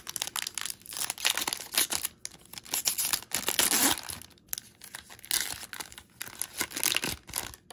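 A foil trading-card pack wrapper being torn open and crinkled by hand, in irregular bursts of crackling rustle with a short lull about four seconds in.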